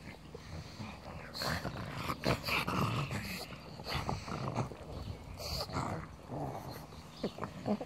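Pugs play-fighting, growling in short, irregular bursts.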